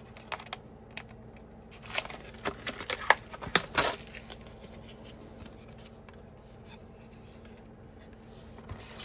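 Hands opening and handling a CD single's packaging: rustling, scraping and a string of sharp clicks, busiest between about two and four seconds in, then quieter handling.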